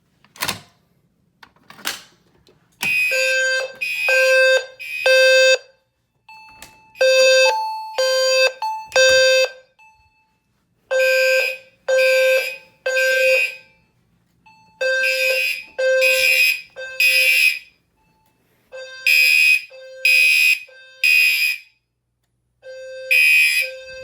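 Two clicks, then fire alarm horns start sounding in a temporal-three pattern: three short blasts, a pause, repeated about every four seconds. The horns are a Gentex Commander horn together with a System Sensor HW-LF low-frequency sounder, which gives the low 520 Hz tone under the higher horn tone.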